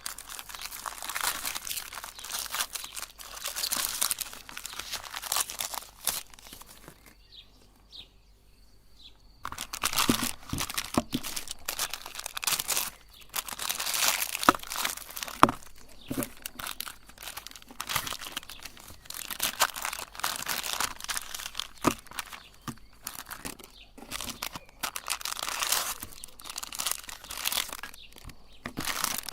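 Ice cream and its crunchy parts being forced through a meat grinder: continuous crunching and crinkling, with a lull of about two seconds some seven seconds in.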